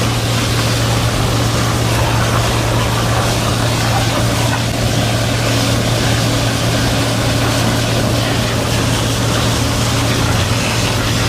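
Hydro-excavation vacuum truck running steadily: a constant low hum under a rushing noise, with no change in pace.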